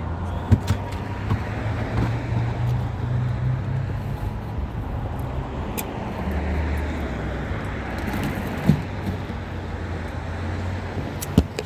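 Steady low rumble of motor-vehicle engines, with three sharp clicks or knocks from parts being handled.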